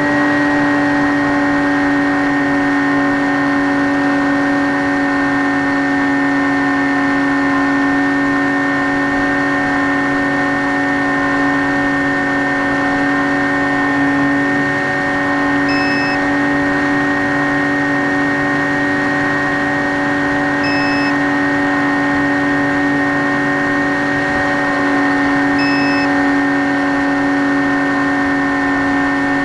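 Skywalker X5 flying wing's electric motor and propeller running at a steady cruise in flight, heard from the onboard camera as an even drone. Three faint short beeps sound about five seconds apart in the second half.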